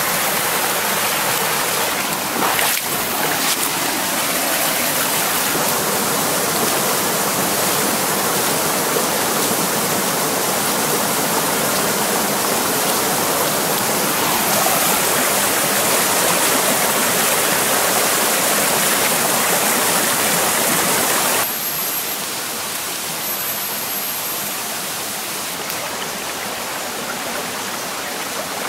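Shallow rainforest stream running and splashing over granite rocks, a steady rush of water. It turns quieter about three-quarters of the way through.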